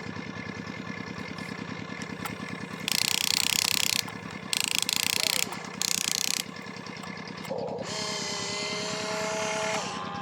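Radio-controlled construction vehicle working: a steady rapid mechanical buzz of its motor and gears, broken by three loud bursts of hiss a few seconds in, with a steady whine near the end.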